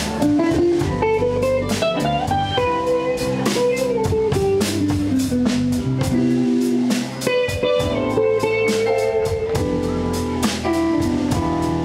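Live band playing an instrumental: a bending electric guitar melody over chords from a Yamaha Motif XS7 keyboard, with a steady drum-kit beat.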